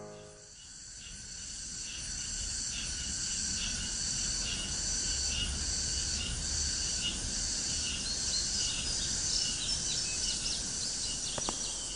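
A steady chorus of insects chirping in a pulsing rhythm over a low background rumble. It is summer outdoor ambience, fading in over the first couple of seconds.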